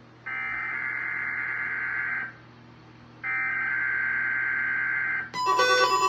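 SAME digital header of a weather-radio broadcast: two bursts of warbling data tones, each about two seconds long, a second apart, sent to trigger alert receivers ahead of a required monthly test. About five seconds in, a run of electronic alert beeps at changing pitches starts.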